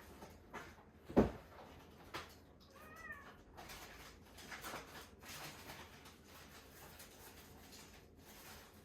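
A house cat gives one short meow, rising and falling, about three seconds in. A sharp thump about a second in is the loudest sound, with a few softer clicks and rustles around it.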